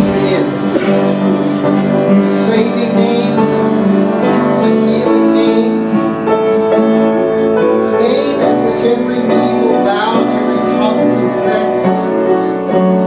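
Live church worship band music: keyboard playing slow, held chords with a band behind it.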